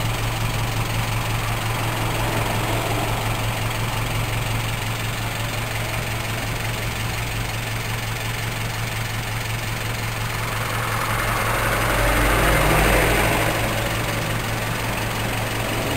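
KIA Pregio van engine idling at the tailpipe with an HHO fuel-saver kit fitted, a steady low exhaust note. It swells briefly about twelve seconds in.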